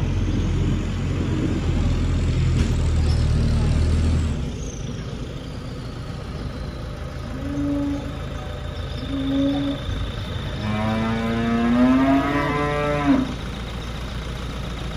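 Holstein calves mooing: two short calls, then one long moo rising in pitch about eleven to thirteen seconds in. A tractor engine runs underneath, louder for the first four seconds.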